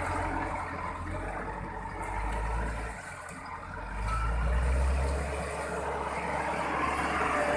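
A heavy vehicle's engine running with a low rumble that eases off about three seconds in and picks up again about a second later.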